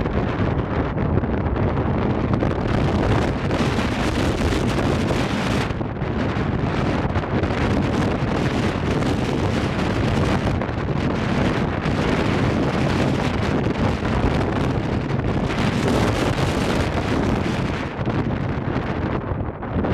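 Strong 30-40 knot wind buffeting the microphone: a steady, loud low rumble whose hiss rises and falls with the gusts.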